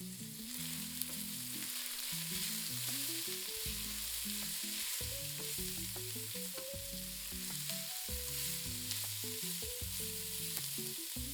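Sliced celery, red onion and pancetta sizzling in olive oil in a pot as they are stirred, a steady frying hiss. Soft background music with low stepping notes plays underneath.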